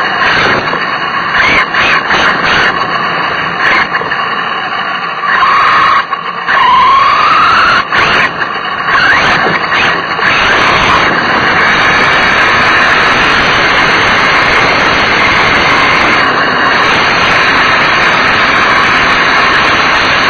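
Small high-revving nitro engine heard through an onboard action camera. For the first ten seconds or so its whine rises and falls in pitch between breaks and knocks, then it holds a steady high-pitched scream, over a constant rumble of rolling and wind noise.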